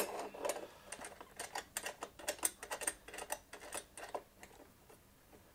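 Quick, irregular light clicks and taps of metal on metal as the small parallel fence of a Proxxon drill stand is shifted in the slot of its metal base and its clamping knob worked; the clicks thin out and fade after about four seconds.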